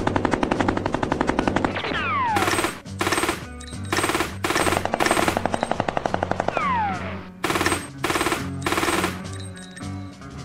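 Automatic machine-gun fire: one long burst at the start, then a string of short bursts, with two falling whistles like ricochets in between. Background music with a low steady line runs underneath.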